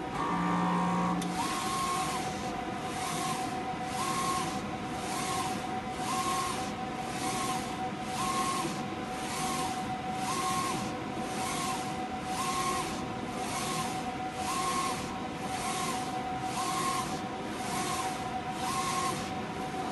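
Large-format roll-to-roll inkjet printer running a feed-calibration test print. The printhead carriage shuttles back and forth across the media in even passes, a little more than one a second, over a steady whine.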